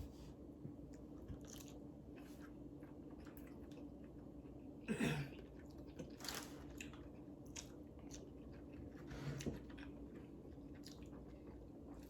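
A person eating a seafood boil close to the microphone: quiet chewing with wet smacks and small clicks, and louder bursts of eating noise about five seconds in, again at six and near nine seconds.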